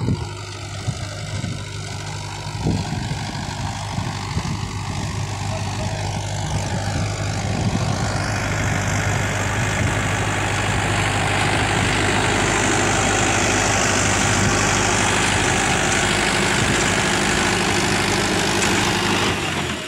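Mahindra 415 tractor's diesel engine running steadily under load while its rear rotavator tills the soil. About eight seconds in the sound grows louder and brighter, with a dense hiss over the engine note, as the tractor passes close.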